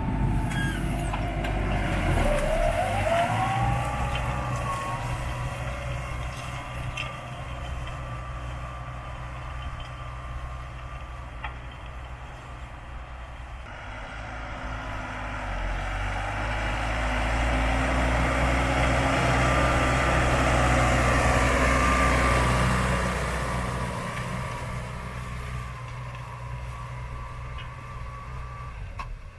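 Tractor engine running under load as it pulls a Gregoire Besson Normandie 2500 short disc harrow through the soil, with its pitch rising about two seconds in. The sound gets louder around the middle and then fades again.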